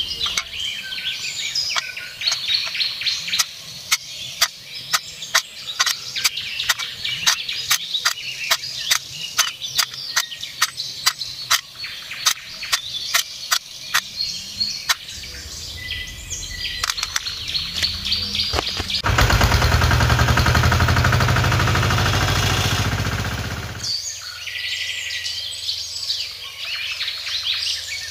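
Miniature clay bricks dropped one at a time into a small sheet-metal tray, a sharp clink about two to three times a second through the first half, with birds singing throughout. Later a loud, steady noise lasts about five seconds and is the loudest part, then stops suddenly.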